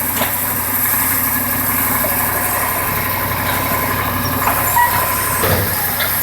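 Heavy truck's diesel engine running steadily while its hydraulic loader crane loads cut branches.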